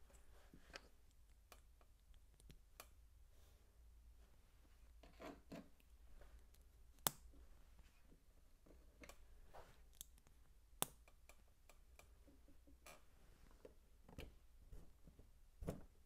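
Faint, scattered clicks and taps of plastic LEGO pieces being handled and pressed together. Two sharper clicks stand out, one about seven seconds in and one about eleven seconds in.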